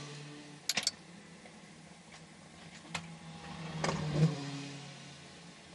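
The Gibson V8 of an Oreca 07 LMP2 car, heard from the cockpit during a restart attempt: the engine note swells and fades, dying away at the start and building again to a peak near the end before fading. A quick burst of sharp clicks comes about a second in, and a single click near the middle.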